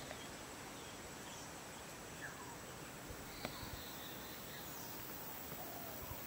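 Outdoor field ambience: a steady hiss with a thin, steady high insect tone and faint, scattered bird chirps, plus a single faint click a little past the middle.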